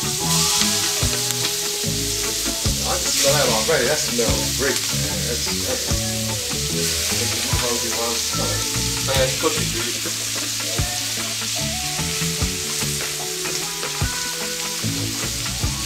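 Curry-seasoned chicken sizzling as it is scraped into a hot pan of oil and curry powder, the curry powder being burnt in the oil for flavour. Sharp clicks and scrapes of a plastic spatula against the plastic mixing bowl come and go over the steady sizzle.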